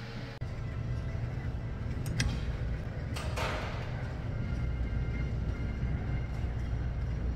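Steady low rumble of a large gym's room noise, with a sharp click about two seconds in and a short rattle about a second later, likely from the pulldown machine in use.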